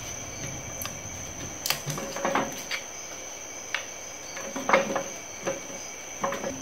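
Hand tools on a rusty Ford 9-inch rear axle housing: a screwdriver and wrench clinking and scraping against the metal in a string of irregular taps, the loudest a little under five seconds in.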